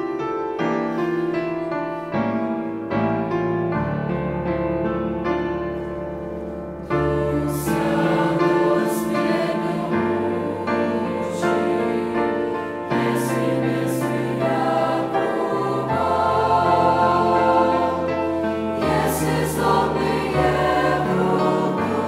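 Mixed choir of young men's and women's voices singing a Russian hymn in harmony, in slow, held chords over sustained bass notes. It grows louder about seven seconds in.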